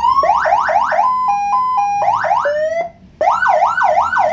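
CJB 200-watt police-escort siren with an add-on Whelen HHS IC tone kit, sounding through a 200-watt speaker and switching between tones. First come quick up-sweeping yelps, then a two-note hi-lo alternation about a second in, then more yelps that fall away. It cuts out briefly near three seconds, then returns with repeated rising-and-falling sweeps.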